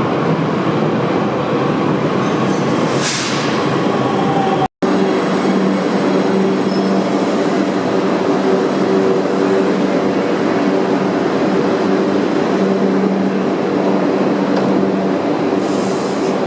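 Shiraz Metro train running, with a steady rolling rumble and a low steady hum. A momentary gap about five seconds in interrupts it.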